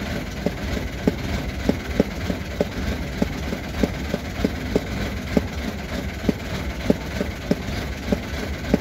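Narrowboat's diesel engine running slowly at low revs: a steady low rumble with a regular chugging knock about three to four times a second.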